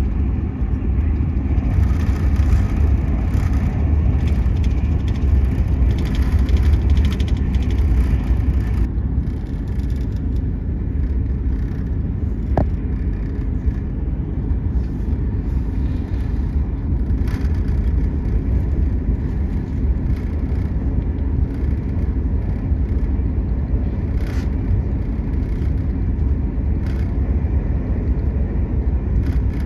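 Enterprise passenger train running at speed, heard from inside the carriage: a steady deep rumble of wheels and running gear, with a few faint clicks from the track.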